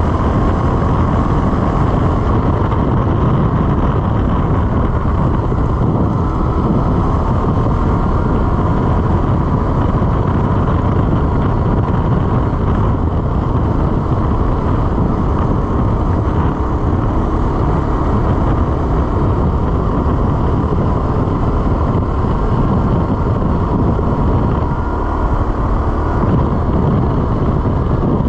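CFMOTO CForce 600 ATV's single-cylinder engine running at a steady cruising speed, with tyres on gravel and wind noise on the microphone.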